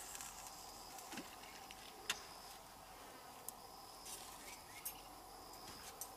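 Faint steady buzzing of insects, with a few light, sharp clicks scattered through, the clearest about two seconds in, as a spinning rod and reel are handled and set in a rod rest.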